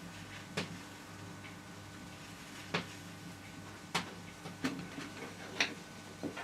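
A handful of light, irregular clicks and taps, about six in all, over a steady low hum.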